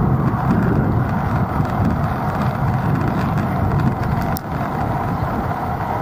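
Steady road noise of riding through city traffic, with wind rumbling on the microphone. A single sharp click comes about four seconds in.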